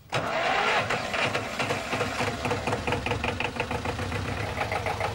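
Lanz Bulldog tractor's two-cylinder MWM diesel engine running with a rapid, even knocking beat. It cuts in abruptly right at the start.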